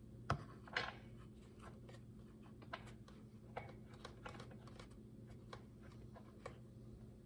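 Faint scattered clicks and light taps of hands fitting a piston stop into an Echo CS-590 chainsaw's spark plug hole, with one sharper click about a third of a second in, over a steady low hum.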